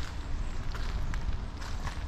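Footsteps walking at an even pace on wet gravel, about two steps a second, over the hiss of light rain and a low rumble.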